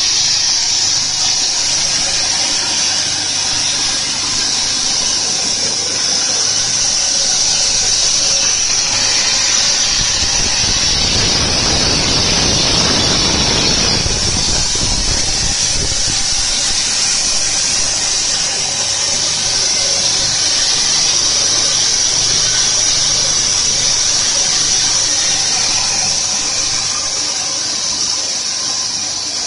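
Plastic recycling pelletizing line running: a steady, loud, high-pitched hiss over a low machine hum. About ten seconds in, a louder rushing noise swells for several seconds and then fades back.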